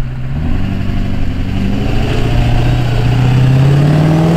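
Chevy LB7 6.6 L Duramax turbo-diesel V8 running hard under load as the truck climbs a hill in two-wheel drive, its revs climbing steadily and its sound growing louder.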